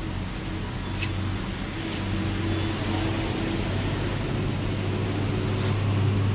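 Steady low mechanical hum under a broad rumble, growing slightly louder, with a small click about a second in.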